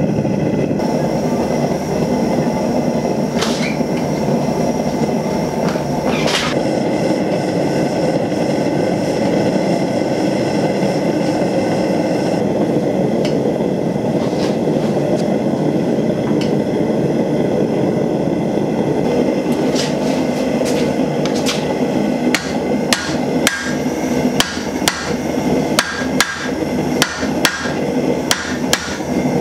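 Propane forge burner running with a steady rush as a steel bar heats. In the last third, a hammer begins striking the hot bar on an anvil, a steady run of blows just under two a second.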